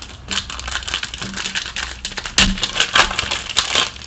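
Crinkling and tearing of a foil trading-card pack wrapper being opened by hand: a dense run of crackles that stops just before the end.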